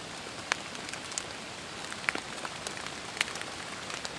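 Steady pouring rain falling on the forest's trees and leaf-covered ground, a constant hiss with scattered sharp ticks of single drops landing close by.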